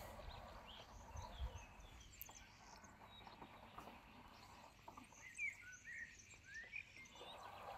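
Quiet outdoor ambience with a few faint bird chirps, clustered about five to seven seconds in.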